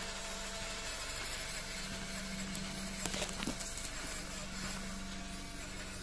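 Electric drive motor and drivetrain of an MN99S 1/12-scale RC crawler running steadily, a constant whine under a hiss, with a few sharp clicks about halfway through as it crawls over the sandy trail.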